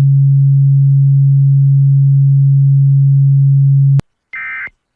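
Emergency Alert System broadcast audio: a loud, steady low tone cuts off with a click about four seconds in. Near the end comes one short, high-pitched warbling data burst, the first of the End of Message (NNNN) bursts that close an EAS alert.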